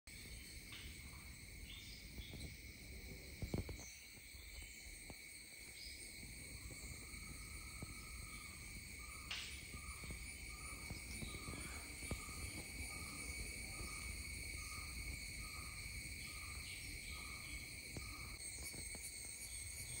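Cicadas singing in one steady, high, unbroken buzz. From about a third of the way in, a short lower call repeats about every two-thirds of a second, and a single knock a few seconds in is the loudest moment.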